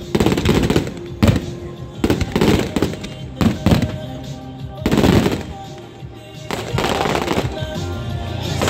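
Aerial firework shells bursting in a rapid series of loud bangs with crackling trails, the reports coming close together like gunfire.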